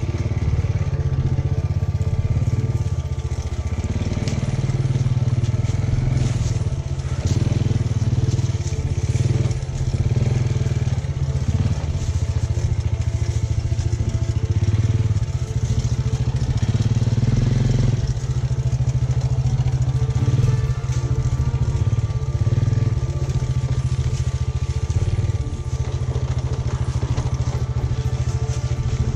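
Small step-through motorcycle's single-cylinder engine running at low speed, its pitch rising and falling with the throttle, while the tyres crunch over stones and the bike knocks over bumps on a rough rocky dirt trail.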